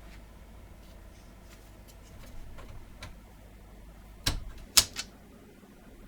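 Scattered light clicks and taps from hard parts being handled, with three sharper clicks a little after four seconds in, the second the loudest.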